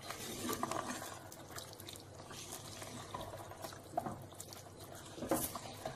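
Wooden spatula stirring raw chicken pieces into thick, wet tomato masala in a pot, giving faint squelching and sloshing sounds, with a brief louder wet sound about five seconds in.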